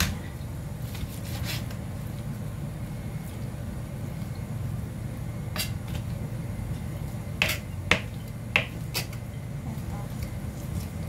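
Knife and hands working raw chicken thighs on a plastic cutting board, cutting the skin away, with a handful of sharp clicks and taps in the second half, over a steady low hum.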